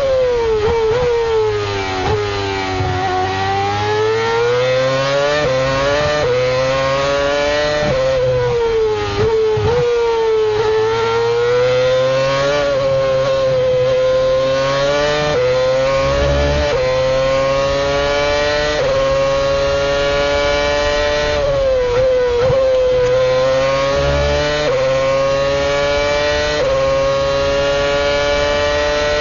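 Lotus E20's Renault V8 Formula 1 engine as heard onboard, revving up through the gears with quick upshifts, each a sudden drop in pitch followed by a steady climb. Several times it falls in pitch under braking with rapid downshifts for the corners before pulling hard again.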